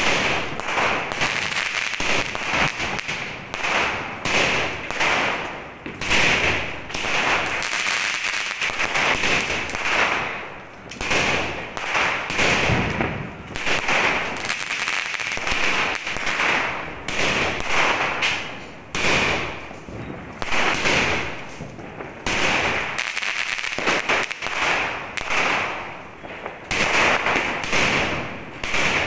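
Multi-shot aerial firework cake (a 120-shot sky shot) firing shot after shot, about one a second. Each shot is a sharp report that fades over about a second, with a few shots coming in quicker clusters.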